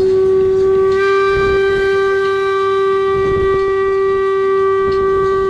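A paddlewheel cruise boat's horn sounding one long, steady, unbroken blast at a single pitch, which grows fuller about a second in.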